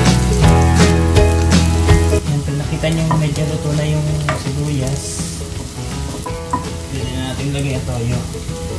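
Sliced onion and garlic sizzling in hot oil in a nonstick wok while a wooden spatula stirs and scrapes them around the pan, the stirring busiest in the first couple of seconds.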